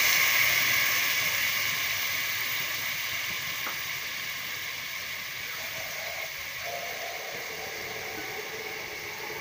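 Tamarind water sizzling and steaming as it hits the hot oil and masala in a pressure cooker, the hiss dying down gradually as the liquid settles.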